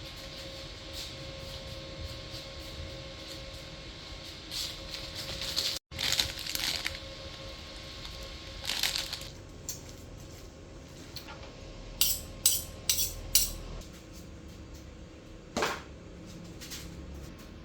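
Kitchen handling sounds during hand food preparation: soft rustling now and then, and a quick run of four sharp clinks about twelve seconds in with one more a little later, over a steady faint hum.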